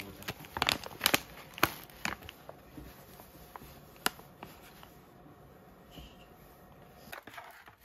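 Clear plastic zip-lock pouch crinkling and crackling as it is handled. The crackles are busiest in the first two seconds, then thin out, with one sharp crackle about four seconds in.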